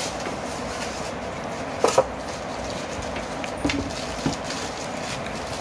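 Packing being handled: a few short knocks and rustles as a plastic-wrapped voltage stabilizer is lifted out of its foam packing and set down on its cardboard box, the sharpest knock about two seconds in, over a steady background hiss.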